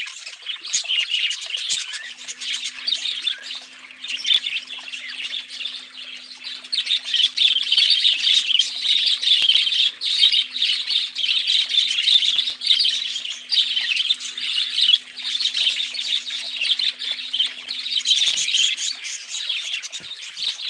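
Pet budgerigars chirping and chattering without a break, in a dense stream of quick high chirps and squawks.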